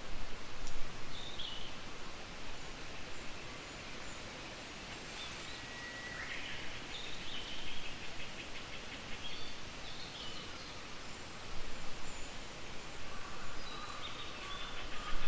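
Japanese bush warbler singing: a long held whistle about six seconds in breaks into a quick rattling phrase, with another quick phrase near the end and a few short higher notes between. A steady rustling background runs under the song.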